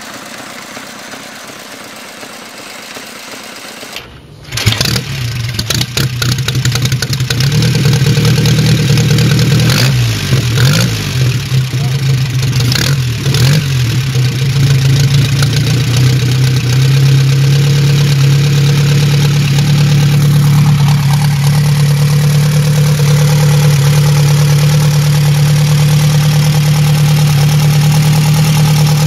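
For the first few seconds, a 1924 Harley-Davidson V-twin runs fairly quietly. Then a much louder 1928 Henderson air-cooled inline-four motorcycle engine comes in, running unevenly at first. It settles into a steady idle for the second half.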